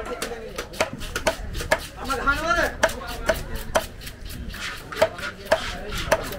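Heavy broad-bladed knife chopping cobia fillet into chunks on a wooden block. It gives a sharp knock at uneven intervals, roughly twice a second.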